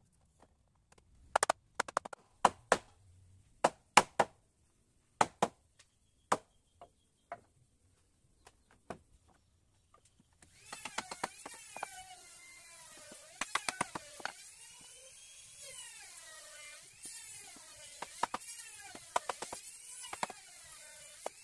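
Sharp, separate knocks of teak door-frame pieces being fitted and tapped together at their joints, a dozen or so spread through the first half. From about halfway a steady hiss with a wavering tone that rises and falls comes in under further knocks.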